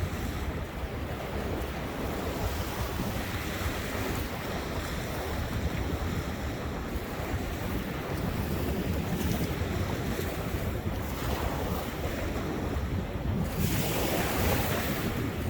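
Ocean surf washing ashore with wind buffeting the microphone; a wave breaks and hisses up the beach near the end.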